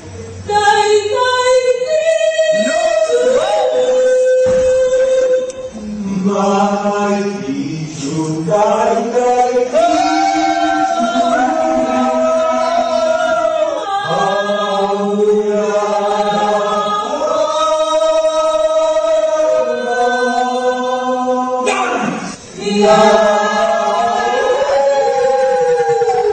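A group of voices singing together in long held notes, like a choir or chant, with lower voices joining about six seconds in. The singing breaks off briefly about 22 seconds in, then goes on.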